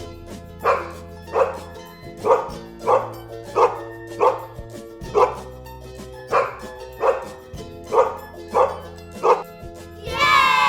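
A dog barking over and over, about a dozen single barks spaced a little under a second apart. Near the end a long falling tone with many overtones cuts in.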